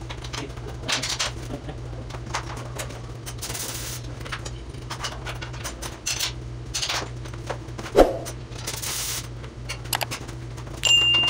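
Scattered metallic clinks and knocks from steel parts being handled, with one louder knock about eight seconds in and two short hisses, over a steady low hum.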